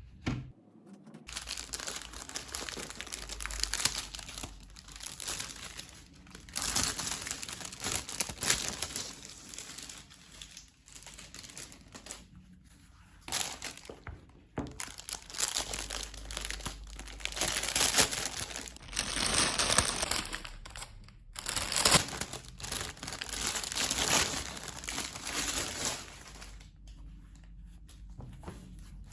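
Packaging being handled and unwrapped: irregular bursts of crinkling and tearing, stopping briefly every few seconds.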